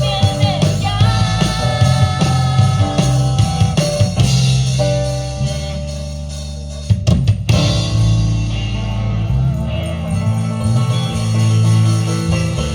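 Upbeat band music with a drum kit, bass and singing. It softens for a couple of seconds near the middle, then comes back in with a quick run of drum hits about seven seconds in.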